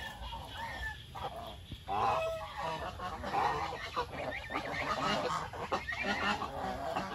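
A flock of domestic geese honking, with several calls overlapping and growing louder from about two seconds in.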